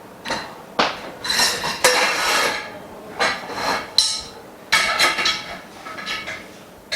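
Frame bars of a dust-free room's frame clinking and knocking as they are handled and fitted together: a string of separate clanks and short rattles, some with a ringing tail.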